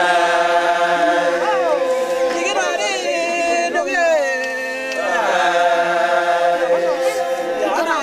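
Group of Papuan voices chanting together, holding long steady notes that are broken every few seconds by voices sliding up and down in pitch.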